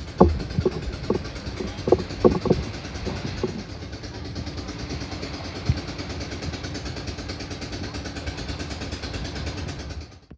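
A distant boat engine running with a steady low hum under wind rumble on the microphone, with a few short bursts of people's voices in the first three or so seconds. The sound fades out at the very end.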